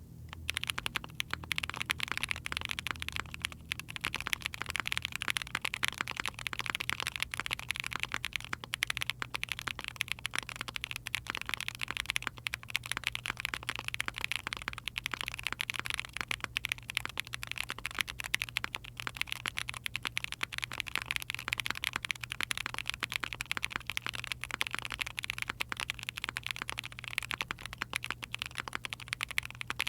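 Continuous fast typing on an Ai03 Vega mechanical keyboard with a POM plate, GMK Bingsu keycaps and factory-lubed Chosfox x JWICK Voyager hyper-tactile switches: a dense, steady stream of keystroke clicks with a thin, not very full sound.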